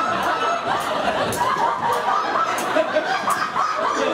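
Theatre audience laughing, with several voices overlapping.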